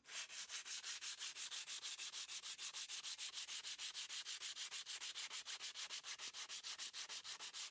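Dried wall putty being sanded by hand with sandpaper: rapid, regular back-and-forth scratching strokes, smoothing the putty before it is painted.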